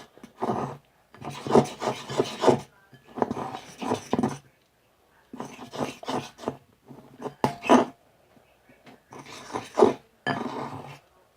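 Sticky clear slime being squished and stretched by hand, in several bursts of wet, crackly squishing with short pauses between. It is still a little sticky and not yet fully activated.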